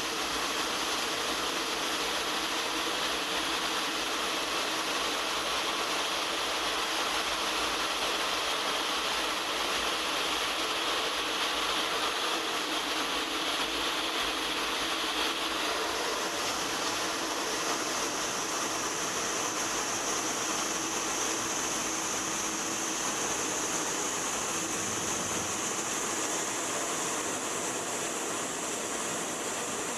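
A-10 Thunderbolt II in flight: its twin turbofan engines and the rushing airflow make a steady, dense noise. About halfway through, the high hissing part shifts higher in pitch.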